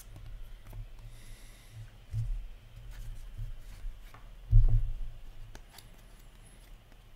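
Hands handling a stack of Upper Deck hockey trading cards: soft rubbing and a few light clicks, with dull low handling thumps, the loudest about four and a half seconds in.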